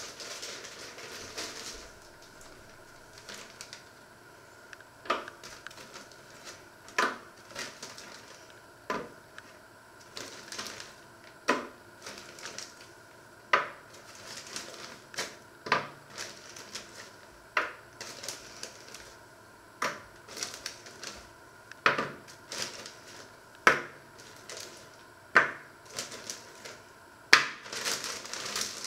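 Breaded croquettes being set down one by one on a metal oven tray, a sharp knock about every two seconds, with a plastic bag rustling as they are taken out near the start, in the middle and near the end.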